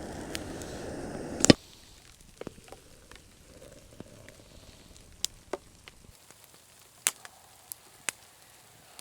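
Steady rushing of river water that cuts off at a loud click about a second and a half in. After that it is quiet, with scattered sharp ticks and pops.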